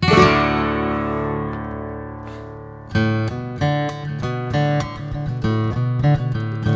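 Background music on acoustic guitar: one strummed chord rings out and fades, then about three seconds in a steady plucked rhythm begins.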